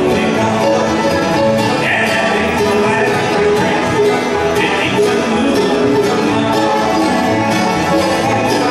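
Live bluegrass band playing an instrumental passage, with banjo, mandolin, acoustic guitar, resonator guitar and upright bass.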